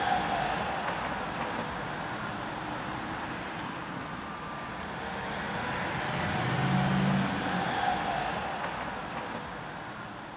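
City street traffic noise: a steady hum of passing vehicles, with a low engine hum swelling about seven seconds in, the whole slowly fading out near the end.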